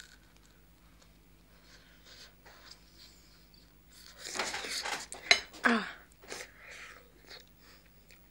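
Someone eating a slice of pizza close to a phone's microphone: quiet biting and chewing, then a louder burst of breathing and mouth noise with a couple of sharp clicks and a short falling vocal sound, about four to six seconds in.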